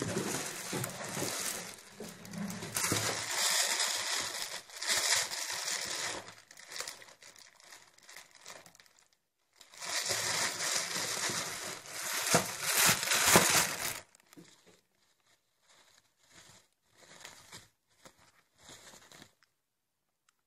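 Food wrapping crinkling as it is handled and opened, in two long spells with a pause between, then a few short rustles.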